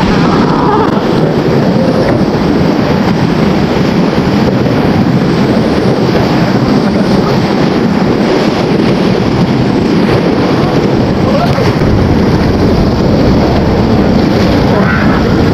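Loud, steady rush of whitewater rapids churning around an inflatable raft.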